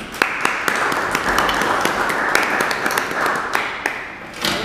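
Audience applauding, dense clapping that thins out and dies away about a second before the end.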